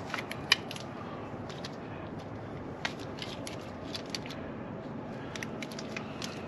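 Irregular light clicks and small metallic taps, as of hand tools and cable connectors being handled during battery wiring work, over a steady background hiss.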